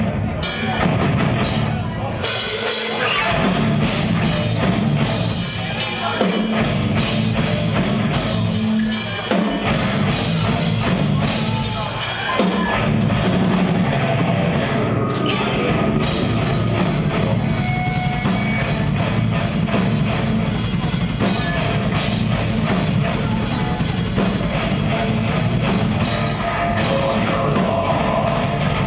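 Death metal band playing live: distorted guitars, bass and a drum kit with rapid drum hits, no vocals.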